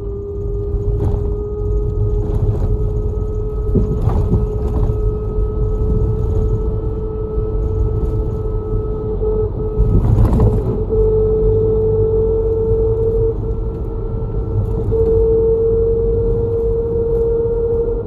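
Bus running at speed, heard from inside the cabin: low road and engine rumble with a steady drivetrain whine that climbs slowly in pitch, and a few bumps and rattles, the loudest about ten seconds in.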